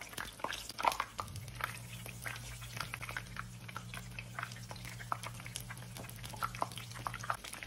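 Beer-battered zucchini flowers frying in hot oil in a pan: steady crackling and popping of bubbling oil, with a low steady hum starting about a second in and stopping near the end.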